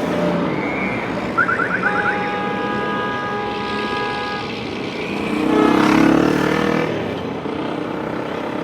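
Street traffic running steadily. About a second and a half in, a police siren gives a quick run of rising chirps, then a horn-like tone is held for about two seconds. A vehicle then passes loudly, peaking about six seconds in.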